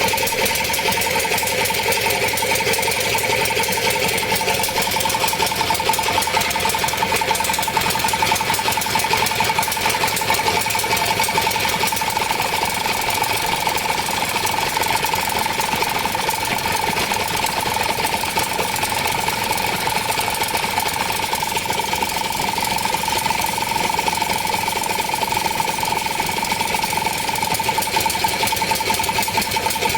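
A machine running steadily at high speed, with a rapid, even rattle and a steady whine; it starts abruptly.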